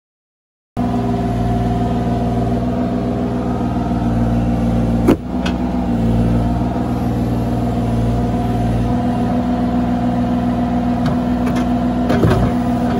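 Bobcat mini excavator's diesel engine running steadily, starting abruptly under a second in. A single sharp knock comes about five seconds in and a few more knocks near the end.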